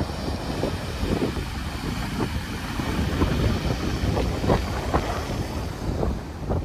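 Small ocean waves breaking and washing up a sandy beach, with wind buffeting the microphone in irregular gusts.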